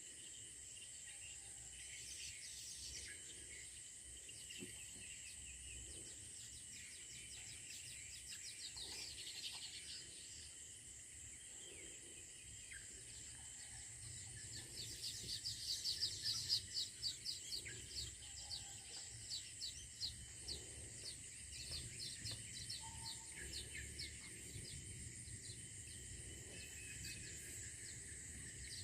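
Small insects buzzing with a steady high-pitched drone, mixed with birds chirping. About halfway through, a rapid run of repeated chirps gets louder and carries on to the end.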